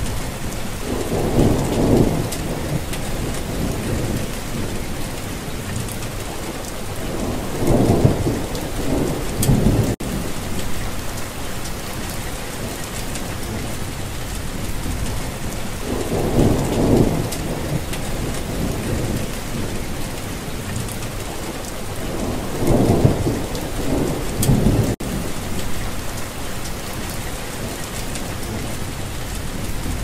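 Steady rain hissing, with thunder rumbling low four times, each rumble lasting a second or two and coming every six to eight seconds.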